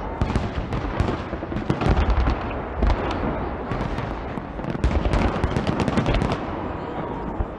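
Aerial fireworks salute: a dense, continuous crackle of bursting stars, broken by several heavier low booms of shells going off.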